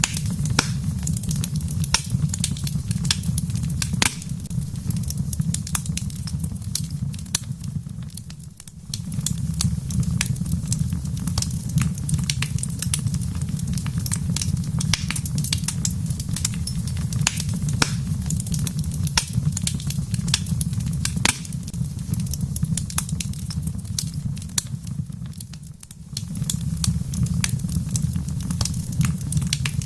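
Wood fire in a fireplace crackling, with frequent sharp pops and snaps over a steady low rumble. The rumble briefly fades out twice, about a third of the way in and again near the end.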